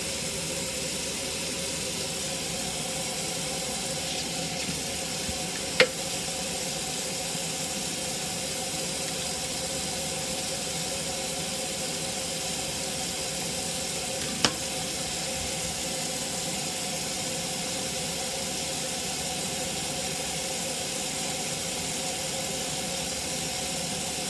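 Kitchen faucet running steadily into a stainless steel sink. Two sharp clicks break through, about six seconds in and again about fourteen seconds in.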